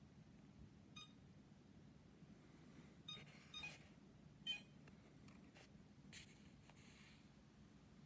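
iLife V5 robot vacuum cleaner giving three short, faint beeps while on charge: the charging fault it has had since new, beeping and flashing its lights instead of charging quietly.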